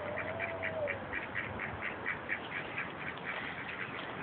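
Pet ducks quacking in a rapid, steady run of short calls, about four or five a second.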